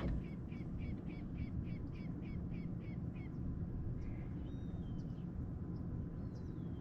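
A bird calling a fast series of short, even notes, about three a second, that stops about three seconds in, followed by a few thin whistled notes. A steady low rumble runs underneath.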